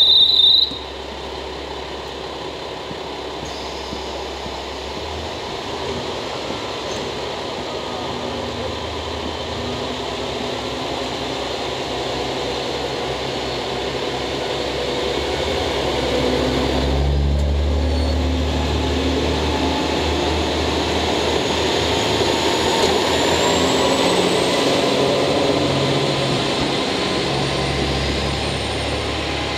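A KiHa 47 diesel railcar set pulling away from the platform, its engines and running gear rumbling and slowly growing louder as it gets under way. A high steady tone sounds for the first half-second, then stops.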